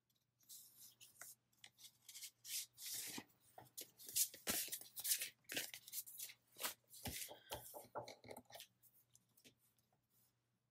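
Paper and card stock rustling and sliding as sticker sheets and cardstock are handled, with sharp crinkles and a few taps, dying away near the end.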